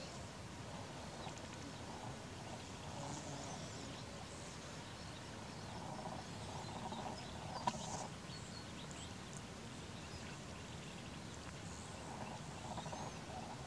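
Faint outdoor background with scattered short, high bird chirps, and one sharp click a little past the middle.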